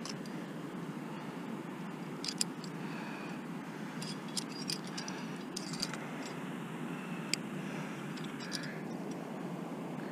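Sharp metallic clinks of carabiners and climbing gear as a quickdraw is clipped to a placed cam's sling and the rope is clipped in, about half a dozen separate clicks through the middle, over a steady rushing background.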